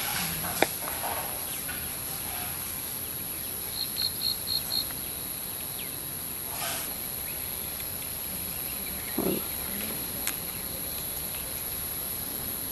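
Steady outdoor chorus of crickets, with a run of five short chirps near the middle and a single sharp click about half a second in.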